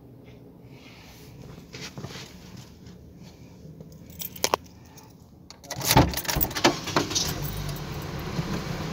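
Car door being opened: sharp clicks of the latch about six seconds in, after which outside noise grows louder, with clatter and rattling as a person climbs into the seat.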